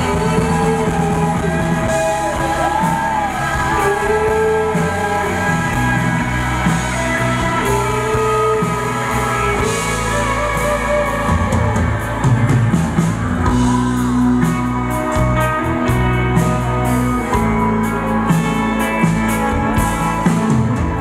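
Live band playing a rock song: guitars and drums with sung vocals, the drumming growing busier with cymbal strokes in the second half.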